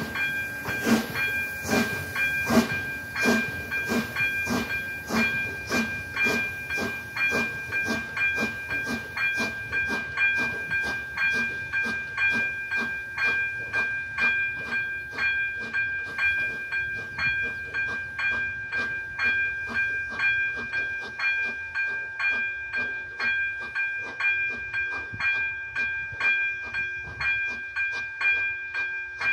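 Steam locomotive starting away with hissing exhaust chuffs, about three a second at first. The chuffs quicken and grow fainter as it draws off into the distance, over a steady high-pitched tone.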